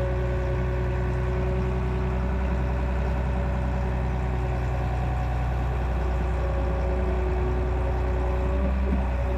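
Excavator's diesel engine running steadily, a constant low hum with two steady whining tones above it.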